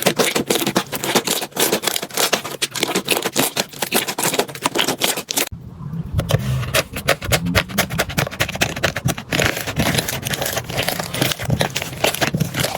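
Slime being squeezed and poked by hand, making dense, fast crackling and clicking pops. About halfway through it changes abruptly to a fuller, deeper squishing.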